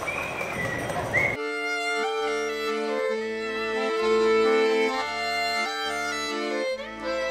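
Street ambience for about the first second and a half, then accordion music starts abruptly: sustained chords over one held note, with bass notes coming and going.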